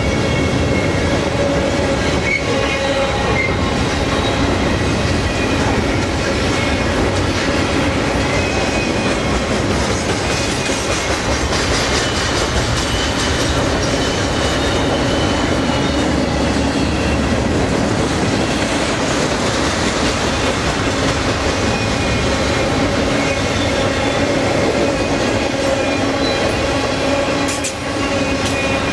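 Freight train of double-stack container well cars rolling past close by: a loud, steady rumble of steel wheels on rail, with a few held ringing tones over it.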